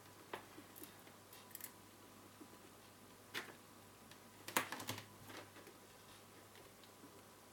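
Scattered light clicks and taps from handling connectors and wires while the power leads are unplugged from an opened LCD monitor. The loudest is a quick cluster of clicks about four and a half seconds in, over a faint steady hum.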